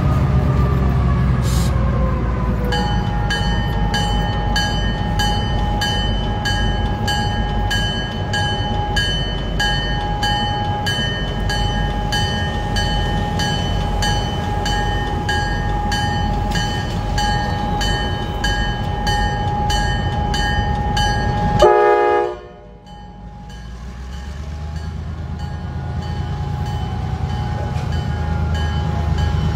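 EMD MP15 switcher locomotives' 12-cylinder 645 diesel engines rumbling as they roll slowly past, with a bell ringing about twice a second over them. About 22 seconds in, a short horn note sounds and everything drops away suddenly, then the engine rumble builds back up.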